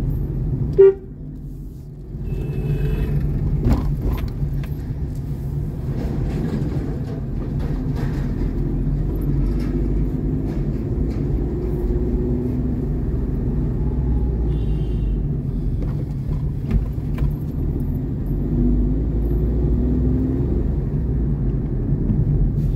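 Steady road and engine rumble of a vehicle driving on the road. A short, loud horn beep sounds about a second in, and fainter horns from other traffic come later.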